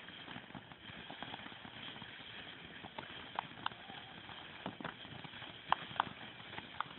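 Fireworks crackling: scattered sharp pops at an uneven pace, starting about three seconds in and coming more often toward the end, over a steady outdoor hiss.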